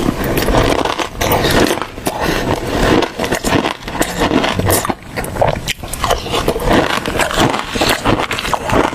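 Close-up eating sounds: irregular crunching and chewing with scraping.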